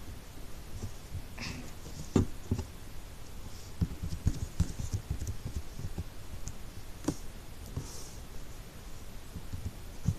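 Hands squishing and poking slime: irregular soft squelches and little pops, with a few sharper clicks.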